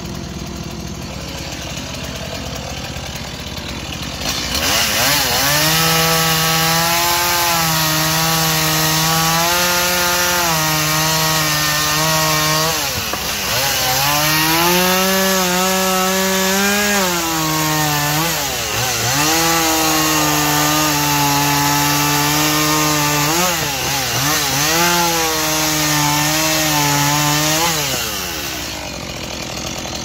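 Stihl two-stroke petrol chainsaw idling, then opened up to full throttle about four seconds in and cutting through wooden sawmill slabs. The engine pitch dips briefly three times between cuts, and it drops back to idle near the end.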